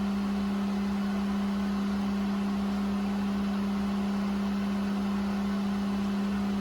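Water well pump motor running with a steady hum, pumping up the pressure tank after the new 40/60 psi pressure switch has closed its points.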